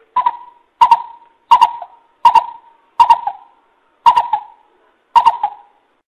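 Greater coucal calling: a series of about seven deep hoots, each starting sharply and trailing off, a little under a second apart.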